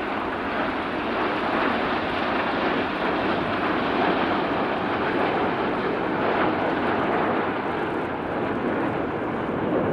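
Steady jet noise from a large formation of military jets, BAe Hawk trainers with an L-39, an F-5E and an MB-339, flying past.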